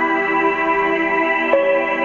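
Slow ambient new-age relaxation music of long held, layered tones, with a new note coming in about one and a half seconds in.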